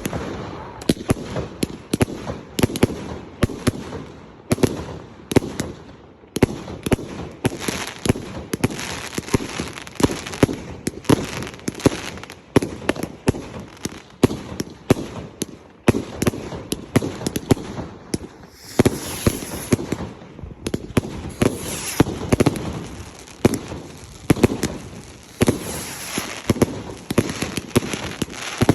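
Fireworks going off: a rapid, almost continuous string of bangs and pops, with stretches of hissing crackle in the second half.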